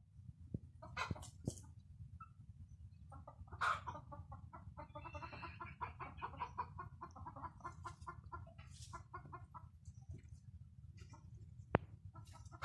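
Native chickens clucking in a run of quick repeated clucks for several seconds, over a low steady rumble. A single sharp click comes near the end.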